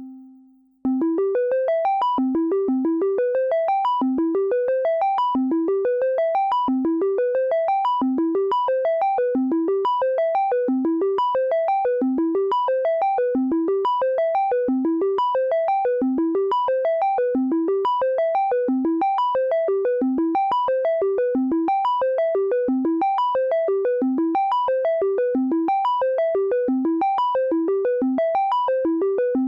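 Elektron Monomachine synthesizer playing an arpeggio. A single held note fades out, then about a second in a fast, even stream of short notes begins. The notes climb and fall in repeating runs of about a second each.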